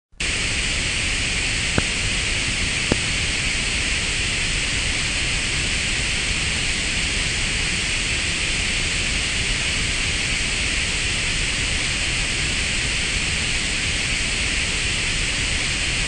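Steady hiss of television static, the snow noise of an untuned analog TV. Two small clicks come about two and three seconds in.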